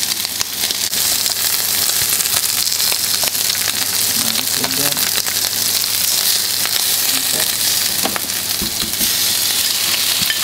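Shrimp sizzling steadily in hot olive oil in a nonstick frying pan on high heat, with scattered light clicks of tongs turning them.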